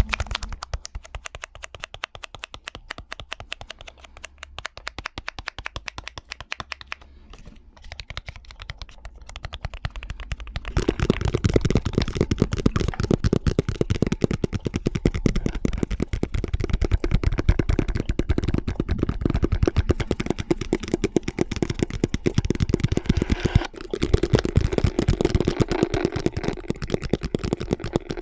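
Rapid ASMR tapping, several tapping tracks layered over one another in a dense patter of small clicks. The tapping is light and sparse at first, then turns louder and much denser about eleven seconds in.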